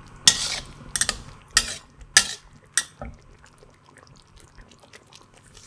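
Metal spatula scraping and striking a wok in five quick, ringing strokes a little over half a second apart, then faint light clicks.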